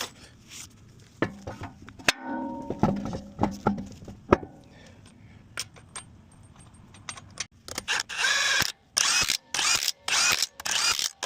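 A few metal tool clanks, then a power tool, most likely an impact wrench, run in about five short bursts in the last few seconds.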